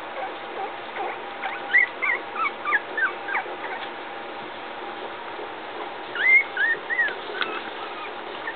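Three-week-old puppies whimpering: a run of short, high squeaky whines about a second and a half in, and a few more about six seconds in.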